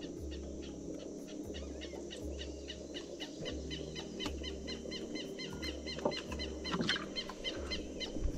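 Outdoor ambience with an animal's short, high chirping call repeating several times a second, over a low rumble that swells about once a second.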